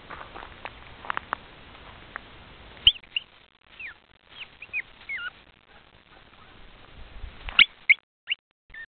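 Pomeranian puppy, about eight weeks old, giving a run of short, high squeaky whimpers that bend up and down in pitch, the loudest near the end. Light clicks and taps come first, then a sharp click about three seconds in.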